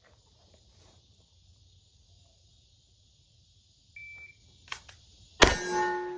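A shot timer gives one short start beep about four seconds in, followed by a click from the draw. About a second and a half after the beep comes a single loud shot from a Glock 17 9mm pistol, with a ringing tail.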